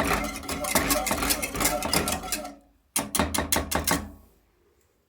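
Spoon stirring jelly powder into hot water in a cooking pot, clinking and scraping rapidly against the pot. It stops for a moment just before three seconds in, runs for about another second, and stops.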